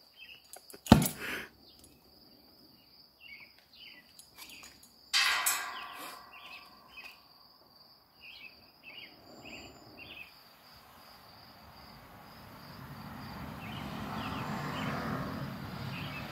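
Oxy-acetylene cutting torch: a sharp pop about a second in and a louder burst around five seconds, then a steady hiss that builds over the last few seconds as the torch cuts into steel pallet racking. Crickets chirp high and steady in the background, with a few short bird calls.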